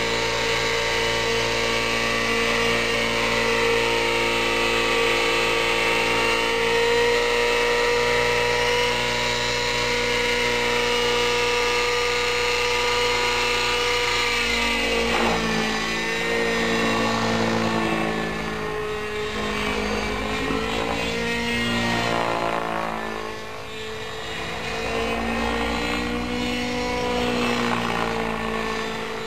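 JR Vibe 90 radio-controlled model helicopter's nitro engine and rotors running with a steady, high-pitched whine while it hovers. About halfway through, the pitch starts wavering up and down as it manoeuvres in flight, and the sound dips briefly in loudness near the end.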